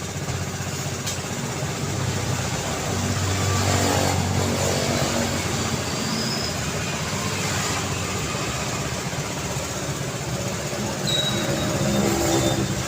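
City road traffic: a continuous wash of car engines and tyre noise as vehicles pass, swelling louder as nearer vehicles go by about four seconds in and again near the end. A brief high squeak is heard twice.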